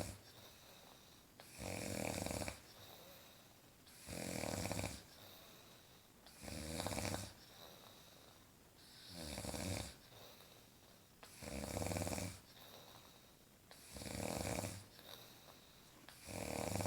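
Loud snoring in a steady rhythm: one snore about every two and a half seconds, each lasting about a second, with quieter breathing between.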